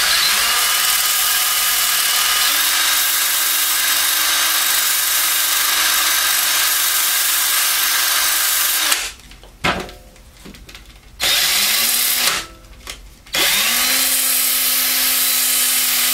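Cordless drill spinning a sandpaper disc at low speed while a knife edge is sharpened against it: a steady motor whine. It stops about nine seconds in, runs briefly twice, then spins up again and runs steadily to the end.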